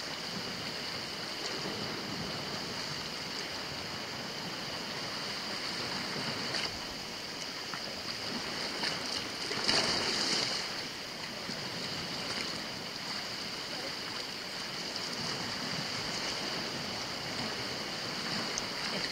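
Sea waves washing on a rocky shore: a steady wash of surf with a louder surge about ten seconds in, under a steady high-pitched hiss.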